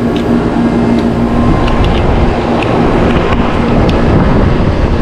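Residential R22 air-conditioning condenser unit running: the outdoor fan and compressor make a loud, steady noise with a low hum, with a few light clicks and taps on top.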